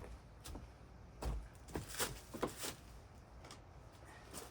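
Handling noise from work on a building site: a handful of short knocks and clicks, bunched in the first three seconds, over a faint low rumble.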